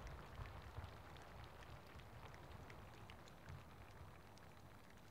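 The dying tail of a fireworks display: a faint low rumble fading away, with scattered faint crackling ticks.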